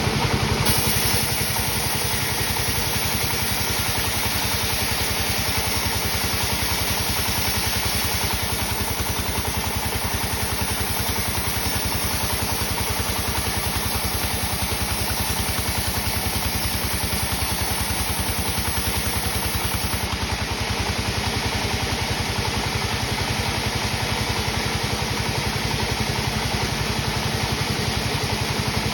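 Sawmill machinery running steadily with a constant engine-like drone.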